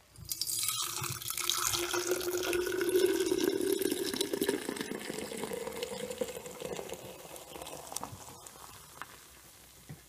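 Fresh goat milk poured in a stream into a glass mason jar: a splashing, gurgling fill whose tone rises as the jar fills, thinning out after about the halfway point.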